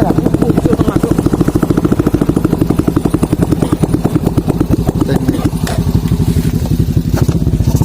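Motorcycle engine running at low speed with a rapid, even pulse, about ten beats a second, riding over a badly broken road with a few knocks in the second half.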